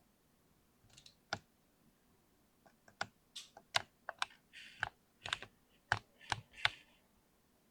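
Typing on a mechanical keyboard: irregular keystrokes clacking, starting about a second in and coming thickest in the middle before stopping near the end.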